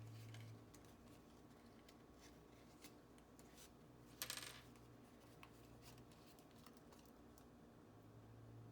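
Quiet handling of small objects: faint scattered taps and clicks, with one brief, sharp, clinking click about four seconds in.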